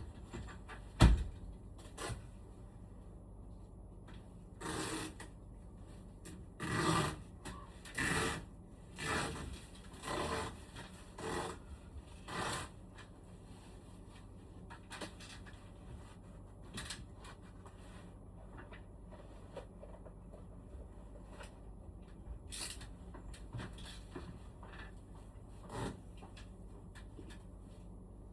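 A sharp knock, then a run of about eight rubbing or scrubbing strokes, roughly one a second, as parts of a room air conditioner are cleaned by hand, followed by a few faint ticks and light handling noises.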